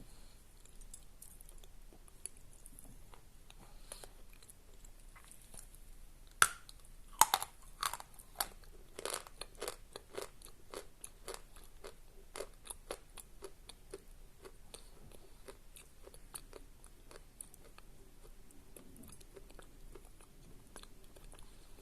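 A person biting and chewing a piece of Khrapovsky natural chalk: a few louder crisp crunches about six to eight seconds in, then a run of smaller crunching clicks that thin out toward the end.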